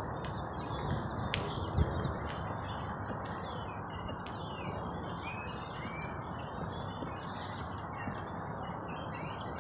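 Several small birds chirping and twittering in quick, overlapping calls over a steady low rush of background noise.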